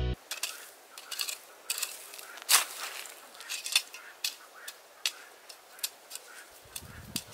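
Steel spade digging into dry hillside ground: a quick, irregular string of crunching and scraping strokes as the blade cuts through dry grass and humus soil. A low rumble joins near the end.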